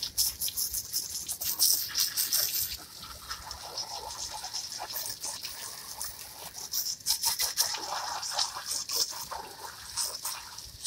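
Water from a garden hose spray nozzle spattering onto white plastic patio chairs: an uneven hiss of spray and splashes that surges and eases as the spray moves across the chairs.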